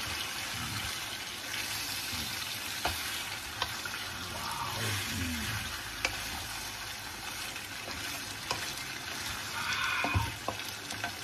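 Pork and chicken adobo with potatoes sizzling in a frying pan on a gas burner, stirred with a wooden spatula. A steady sizzle runs throughout, with a few light clicks of the spatula against the pan.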